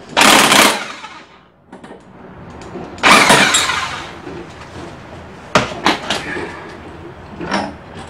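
Electric impact wrench hammering on the 19 mm nut that holds the starter cup on a John Deere JX75 mower engine, in two bursts to break it loose: a short one at the start and a longer one about three seconds in. A few sharp knocks follow near the end.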